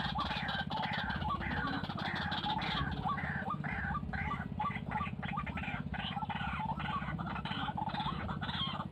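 White-breasted waterhen calling, a harsh croaking call repeated about twice a second, over a steady low hum.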